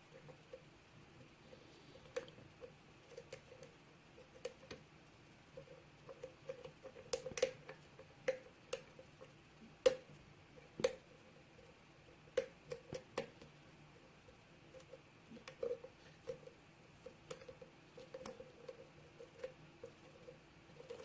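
Lock pick and tension wrench working the pins of a seven-pin pin-tumbler lock during single-pin picking: irregular faint clicks and scrapes of the pick lifting pins, with a few sharper clicks as pins set or the core shifts under tension.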